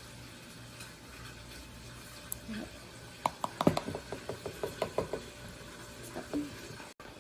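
Spoon clinking and scraping against a dish of mashed potato: a quick run of light taps starting about three seconds in and lasting some three seconds, a few of them ringing briefly.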